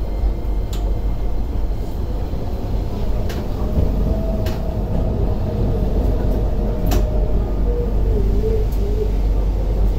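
Toden 7700 series tram running along its track, heard from inside: a steady low rumble with a few sharp clicks scattered through it, and a faint steady tone for a few seconds in the middle.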